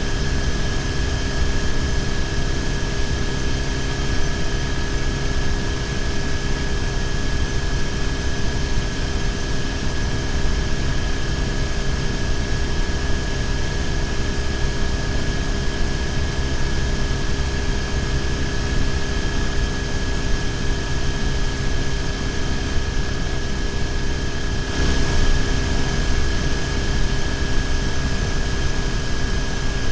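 BMW R1150GS boxer-twin engine running at a steady cruising speed, with wind rush over the bike-mounted camera's microphone and a steady high whine. About 25 seconds in the rush grows a little louder.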